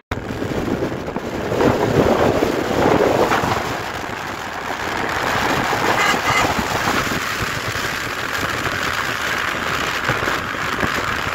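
Wind rushing over the microphone of a moving motorcycle, mixed with road and traffic noise.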